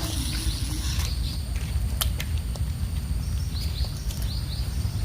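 Outdoor ambience: short high chirps in quick pairs and threes near the start and again late on, over a steady low rumble, with a few sharp clicks about one and two seconds in.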